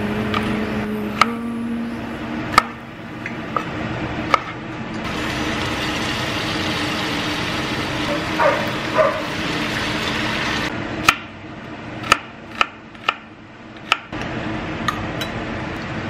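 A chef's knife chopping green bell pepper on a wooden cutting board, a few sharp single knocks. About five seconds in this gives way to a steady sizzle of battered pieces deep-frying in hot oil in a small saucepan. Near the end comes a quick run of sharp knocks.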